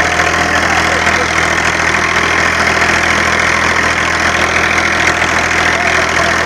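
Massey Ferguson 9500 tractor's diesel engine running steadily under heavy load while pulling a mouldboard plough through the soil.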